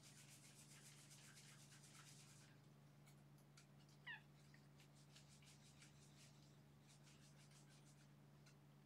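Faint, rapid scratching of fingers rubbing EEG cap electrodes back and forth through hair, in two spells, over a steady low hum. About four seconds in, a brief high squeak cuts through, the loudest moment.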